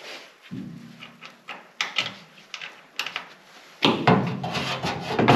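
Hammer driving a steel hinge pin into a Renault Estafette's rear swing-door hinge. Scattered metal knocks and clinks give way, about four seconds in, to a fast run of louder blows.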